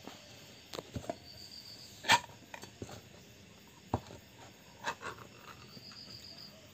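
Light kitchen clatter: about eight scattered short clicks and knocks of utensils, the loudest about two seconds in.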